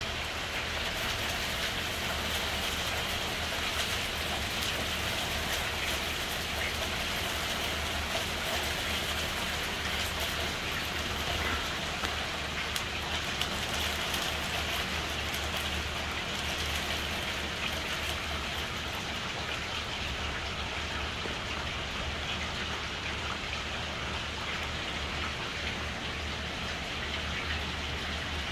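Steady rain falling: an even hiss of drops with a fine patter.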